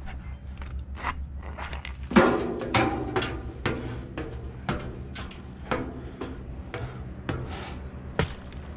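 Footsteps climbing steel boatyard stairs, with clanks and knocks of a long threaded rod and its wooden blocks being carried: a run of irregular sharp knocks, the loudest about two seconds in, over a steady low hum.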